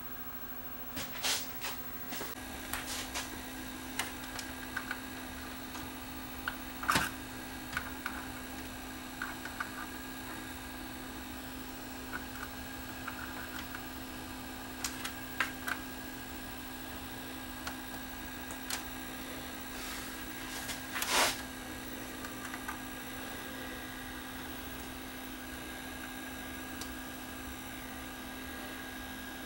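Sony SLV701 VCR running in playback with a steady hum, while light clicks and taps come from the entry-side tape guide being adjusted to align the tape path. The loudest taps come about 7 and 21 seconds in.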